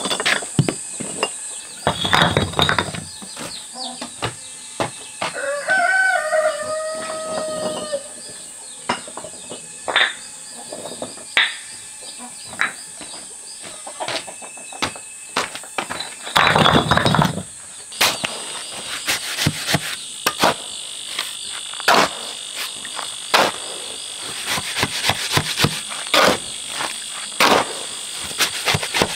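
A shovel scraping and turning sand-cement mortar on concrete, with two loud scrapes of about a second each and many sharp clicks and taps. Behind it runs a steady high drone of insects, and a rooster crows about six seconds in.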